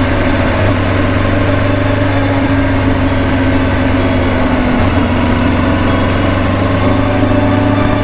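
Kawasaki Ninja 400 parallel-twin motorcycle engine running at steady revs, its pitch dipping slightly about halfway through.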